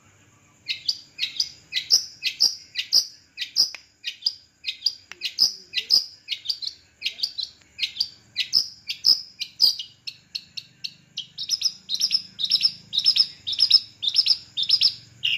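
Long-tailed shrike (cendet) singing a long run of short, quickly repeated notes, starting about a second in and coming faster in the last few seconds.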